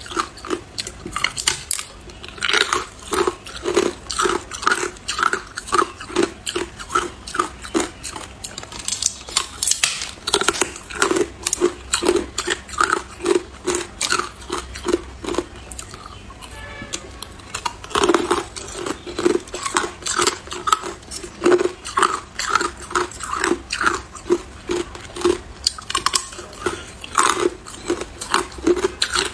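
A person chewing ice, with rapid crunches about two to three a second. There is a short lull past the middle, then a loud bite starts the crunching again.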